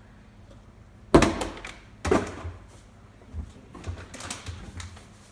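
Two loud thuds about a second apart as a plastic water bottle is flipped and lands, followed by several lighter knocks.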